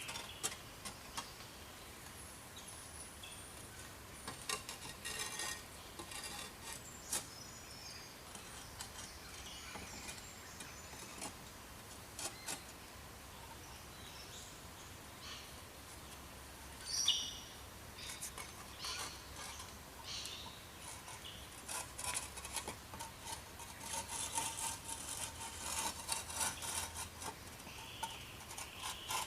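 Small birds chirping, with scattered light knocks and scraping of hand work that come thicker near the end.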